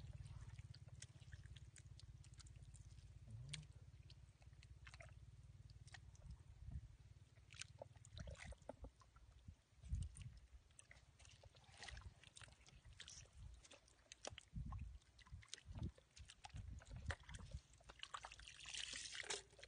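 Faint, scattered wet squelches and slaps of hands working in soft, waterlogged mud, with a low steady rumble under the first half.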